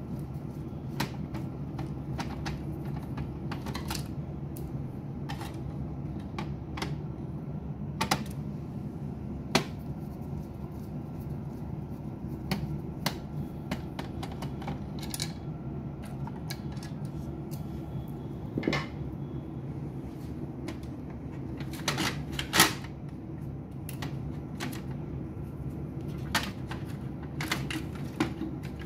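Irregular clicks, taps and a handful of louder knocks of a screwdriver and plastic parts being worked inside an opened HP LaserJet printer as its laser scanner unit is loosened and lifted out, over a steady low hum.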